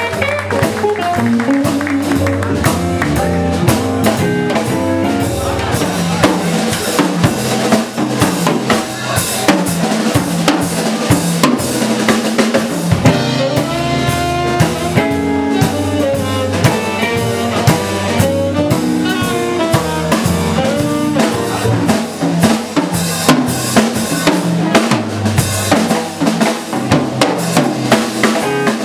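Live band playing a song: a drum kit with snare and bass drum keeping a steady beat, under guitar and other pitched instruments.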